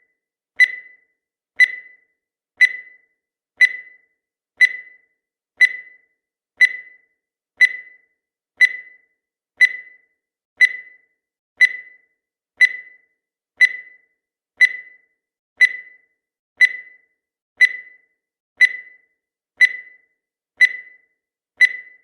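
Countdown timer sound effect ticking once a second: a short, sharp, fairly high tick that dies away quickly, evenly repeated.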